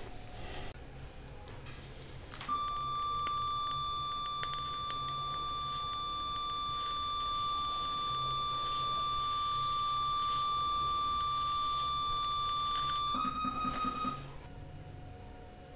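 Fotek ONYX electrosurgical generator sounding its activation tone, a steady high beep lasting about ten seconds while bipolar scissors in bipolar coagulation mode cut and seal tissue. Two brief sharp crackles come midway. About thirteen seconds in the tone shifts slightly higher and wavers for a second, then stops.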